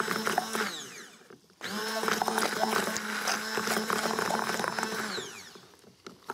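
Immersion (stick) blender running in a beaker of tahini sauce with parsley, puréeing it to a smooth green sauce. It cuts out just under a second in, spins up again after a short pause, runs for about three and a half seconds and winds down.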